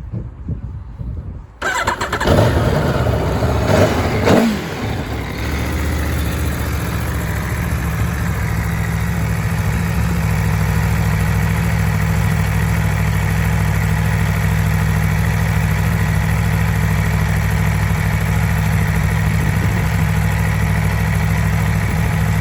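2020 Aprilia Tuono V4 Factory's V4 engine starting up about a second and a half in, running loudly for a few seconds with a brief rise in pitch around four seconds, then settling into a steady idle.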